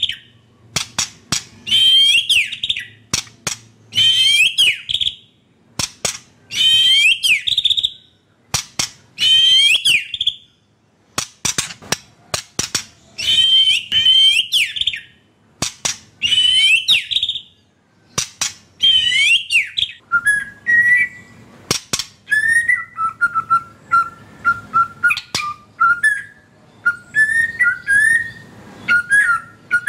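White-rumped shama (murai batu) singing. For the first twenty seconds a loud phrase repeats about every two to three seconds, with sharp clicks in between; after that comes a lower, unbroken warbling.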